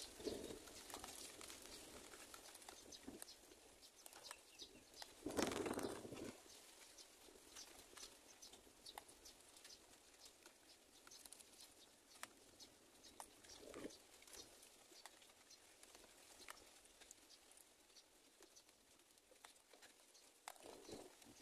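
Faint rustling and scattered light ticks, with a louder rustle lasting about a second around five seconds in, a shorter one around fourteen seconds, and another near the end.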